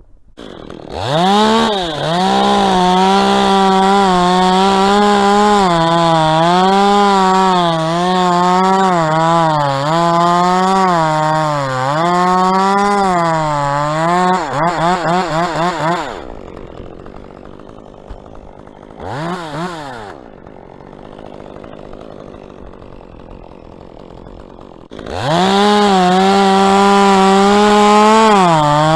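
Two-stroke chainsaw revving up and cutting dead palm wood, its pitch dipping and recovering under load. It drops back to idle for several seconds with one brief blip of throttle, then revs up and cuts again near the end.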